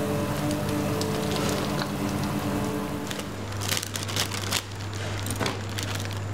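Steady mechanical kitchen hum beside a steaming commercial braising pan. From about three seconds in, a plastic bag of peeled garlic cloves crinkles and crackles in sharp bursts as it is opened and handled.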